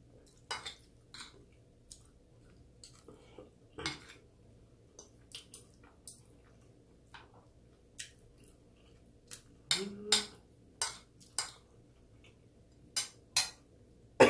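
Spoon and fork clinking and scraping against a plate of stew and rice, in scattered sharp clicks, busier about ten seconds in.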